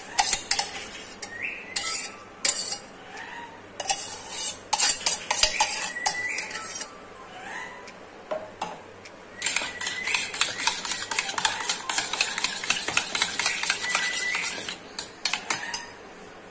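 Steel spoon scooping thick curd out of a stainless steel pot, clinking and scraping against the metal. After a short pause, the curd is stirred fast with the spoon in a steel bowl, the spoon scraping and clattering against the bowl's sides for several seconds.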